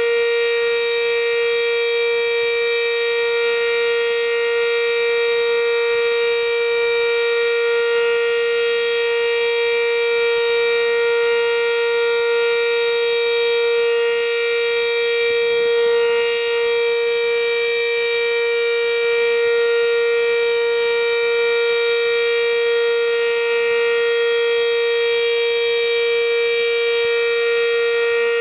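Sentry 7V8 electromechanical outdoor warning siren sounding a steady alert tone at one constant pitch, rich in overtones, during its routine weekly test.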